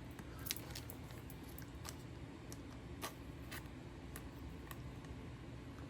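Faint, scattered clicks and light rustles of a trading card and a plastic card sleeve being handled, over a steady low room hum.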